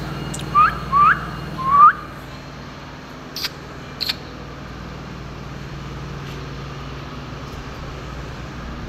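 A person whistles three short rising whistles in the first two seconds to call a puppy along, then makes two sharp clicks. A steady low hum continues underneath.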